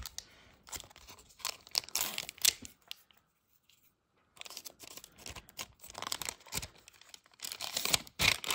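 Silver foil wrapper of a 1992-93 Upper Deck hockey card pack crinkling and rustling in the hands, with a short pause about three seconds in, then torn open near the end.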